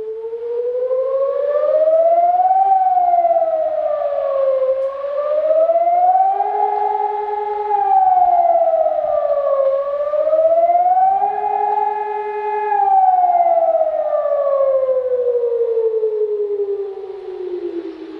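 Civil defence warning siren wailing as a public alert signal. Its pitch rises and falls three times, holding at the top of the later two rises, then winds down in one long slow fall near the end.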